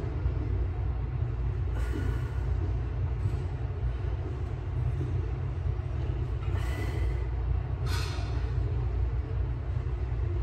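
Steady low rumble of background room noise, with three short hissing sounds about 2, 7 and 8 seconds in.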